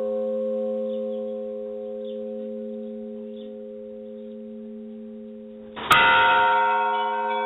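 Church bell tolling: the ring of one stroke dies away slowly, then the bell is struck again about six seconds in and rings out loudly.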